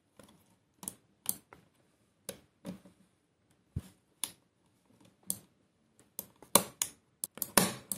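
Small sharp plastic clicks and taps as the scroll wheel of an ASUS ROG Gladius III Wireless mouse is worked into its mount on the new encoder inside the open shell. The clicks come every half second or so, then crowd together near the end as the wheel seats.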